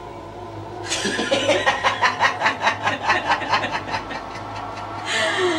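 A woman laughing: starting about a second in, a quick run of ha-ha pulses, about four or five a second, lasting roughly three seconds, over a low steady hum.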